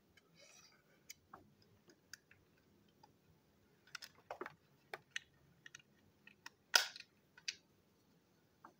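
Scattered clicks and taps of the plastic parts of a Plarail toy train being handled and fitted together while it is reassembled, with a louder short scraping click late on.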